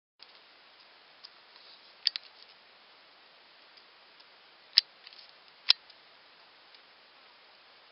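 Faint steady hiss with a few sharp clicks from the camera being handled: a quick double click about two seconds in, then two louder single clicks about a second apart near the five- and six-second marks.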